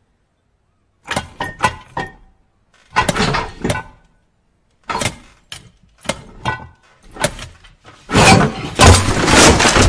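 An old high-level toilet cistern's pull chain yanked repeatedly, clanking and rattling in several short bursts. Near the end comes a loud rush as the cistern flushes.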